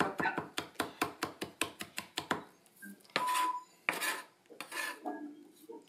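Chef's knife rapidly mincing garlic on a cutting board, quick even chops at about five a second that stop about two and a half seconds in, followed by a few short scraping and rubbing sounds of the knife on the board.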